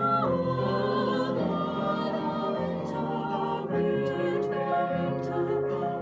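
Classical art-song performance: a singer's held, wavering note slides down and ends just after the start, then the piano accompaniment plays on alone in an interlude of struck chords.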